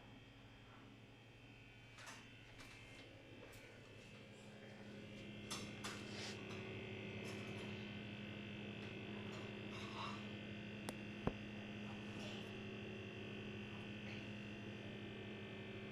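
A five-year-old Beko fridge making its strange noise: a steady hum of several tones with a higher whine over it, growing louder about five seconds in, with a few light clicks scattered through it.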